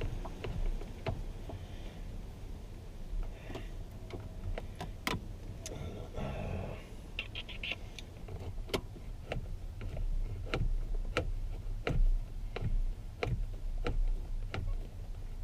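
Sharp clicks and light knocks of hand tools and plastic steering-column parts being handled during reassembly, turning into a run of evenly spaced clicks, about one and a half a second, in the second half, with a brief rustle about six seconds in.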